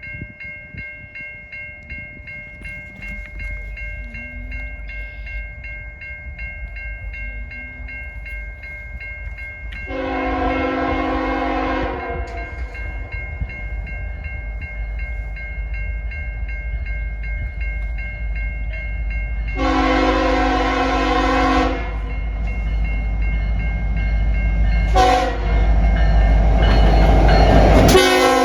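Diesel locomotive horn sounding the grade-crossing pattern as a freight train approaches: two long blasts, a short one, then the start of a final long blast near the end. A crossing bell rings steadily underneath, and the train's rumble grows louder as it nears.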